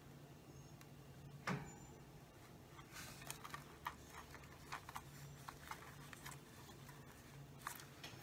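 Light, irregular clicks and taps from handling a hot glue gun and the thin plastic of a soda-bottle face shield while gluing its tabs, with one sharper click about a second and a half in, over a faint low hum.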